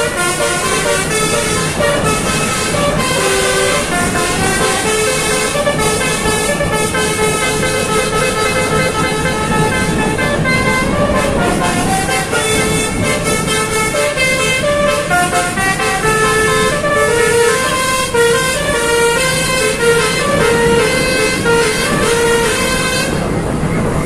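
Bus telolet 'Basuri' multi-trumpet air horn playing a dangdut koplo tune, its notes changing several times a second, over the bus's engine running. The melody cuts off about a second before the end.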